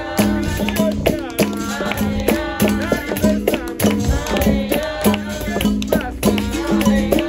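Capoeira roda music: berimbaus sounding a repeating pattern of low twanging notes, with rattles and hand percussion keeping time and voices singing.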